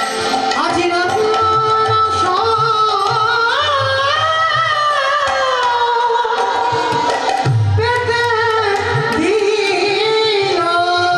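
A woman singing a Bengali lila kirtan devotional song with long held notes that glide and waver in pitch, accompanied by a hand drum.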